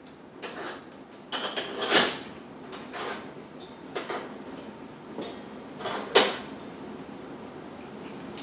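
Irregular metallic clanks and knocks of hand work on a garage door's rollers and track, with two louder knocks about two and six seconds in.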